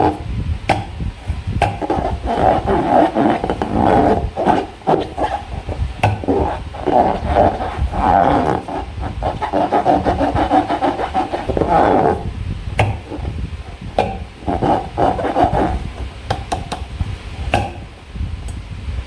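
Hands squeezing and rubbing rubber balloons and slime: a continuous run of rubbery squeaks and groans, broken by many short clicks and squelches.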